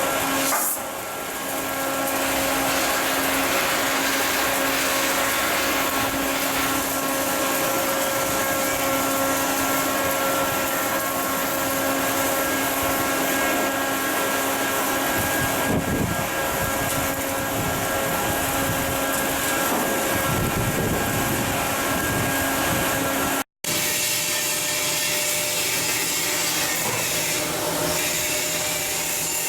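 Steady machine noise from shipbuilding work: a continuous hum with a constant hiss and several fixed tones, like a power tool or blower running. It cuts out abruptly about two-thirds of the way through and resumes with a rougher mix.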